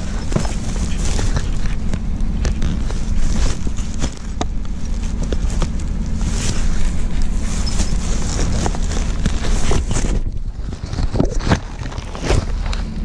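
Thin plastic trash bag rustling and crinkling as hands rummage through the items inside it. The crackling stops about ten seconds in and a few light knocks follow, over a steady low hum.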